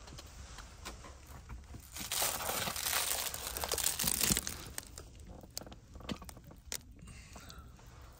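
Rustling and crinkling of clothing and gear being handled in a vehicle, loudest from about two to four and a half seconds in, with a few small clicks.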